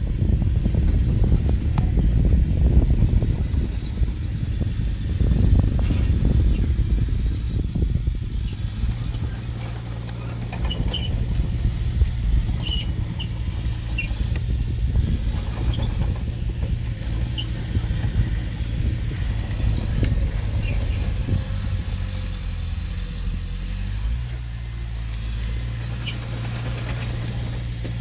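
Heavy-equipment diesel engine working, heavy and rough for the first eight seconds or so, then settling into a steadier hum, with scattered short high squeaks and clinks in the middle stretch.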